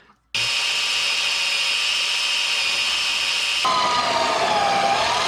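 Electric drill boring through steel for hinge holes, running steadily; near the end its whine dips in pitch as the bit bites, then climbs back.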